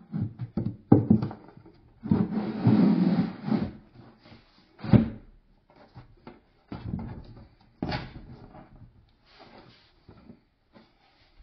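Shelf supports being fitted into a pressed-board bookshelf: irregular knocks and clicks of parts against the wood, with a scraping rub of about a second and a half from about two seconds in and sharper knocks near the middle and later on.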